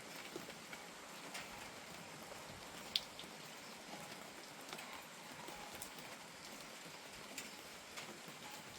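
Steady light rain falling, with scattered single drops ticking close by and one sharper drip about three seconds in.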